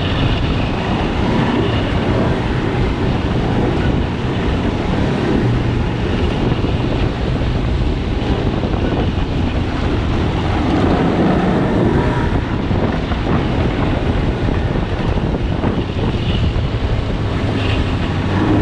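Snowmobile engine running steadily under way, with the track and the rush of wind on the microphone.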